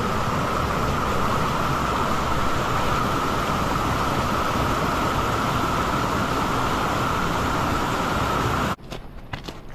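Mountain river rapids rushing steadily over boulders, loud and even. The sound cuts off abruptly near the end, leaving a few light crunching footsteps on gravel.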